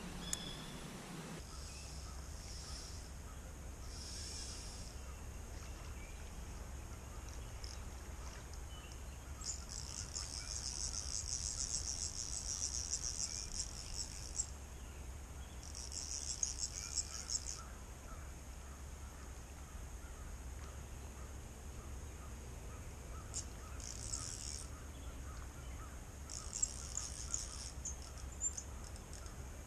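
High-pitched buzzing insect trills come in bursts of one to five seconds, the longest starting about ten seconds in, over a low steady rumble.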